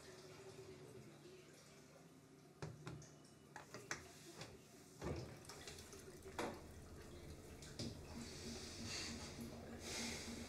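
Quiet clicks and knocks of a door handle and latch being worked and the bathroom door pushed open, with a few soft footsteps, over faint room tone.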